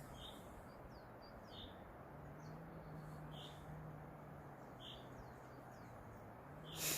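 Faint, steady rush of a distant waterfall under the chirps of small birds, short calls repeating every second or two. A brief louder noise just before the end.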